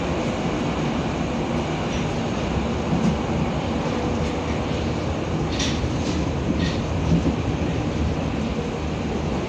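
Berlin U-Bahn F79 train heard from inside the passenger car while running: a steady rumble of wheels and running gear, with a few short high clicks from the wheels on the rails a little past halfway.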